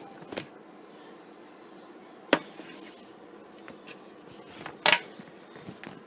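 A few sharp knocks and clicks, the two loudest about two and a half seconds apart, with smaller taps between them over a quiet room.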